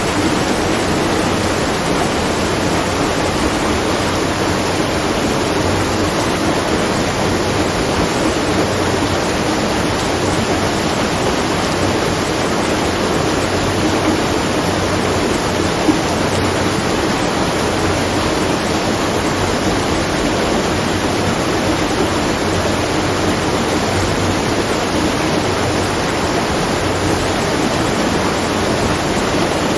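Steady rush of water pouring at a watermill, a continuous even noise with no breaks, and one short click just past halfway.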